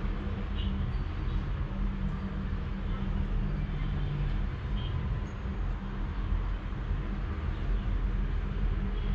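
Domestic cat purring steadily, a continuous low rumble.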